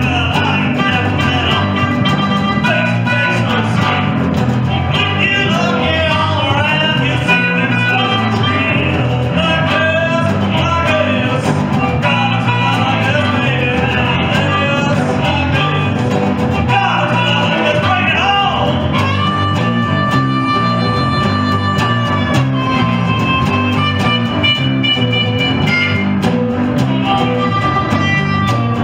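Blues band playing: a resonator guitar and a bass guitar keep a steady groove while a harmonica plays over them, holding long notes about two thirds of the way through.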